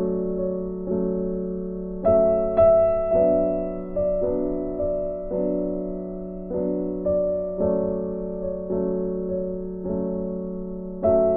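Background music: a slow, gentle piano or electric-piano piece, notes struck about once a second and left to fade.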